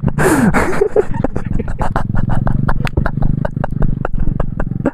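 Motorcycle running at low speed on a rough off-road track, its engine humming low under a rapid, irregular string of sharp knocks and clatter. A brief voice sounds just after the start.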